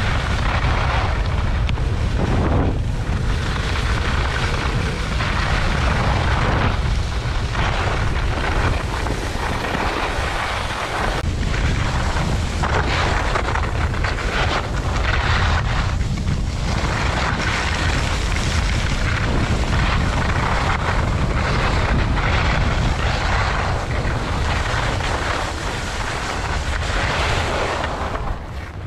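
Wind buffeting a GoPro action camera's microphone while skiing downhill, a steady rumbling rush, with the hiss and scrape of skis sliding on packed snow. It eases a little near the end as the skier slows.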